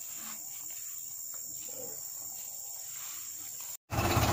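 Steady high-pitched insect chirring, with faint voices in the background. Near the end it cuts off abruptly, and a truck engine is heard idling, much louder.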